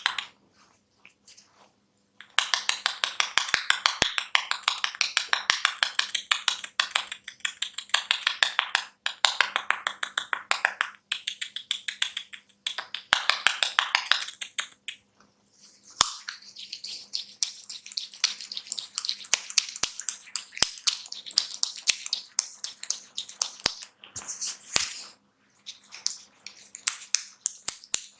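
Hair cracking in a head massage: hair rubbed and twisted between a barber's fingers close to the microphone, making a fast run of dry, sharp crackles. The crackling stops for a moment about two seconds in and again about fifteen seconds in.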